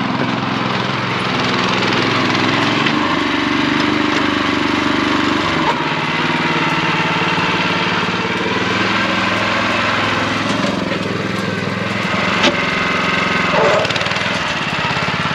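A small engine running steadily, a continuous machine drone.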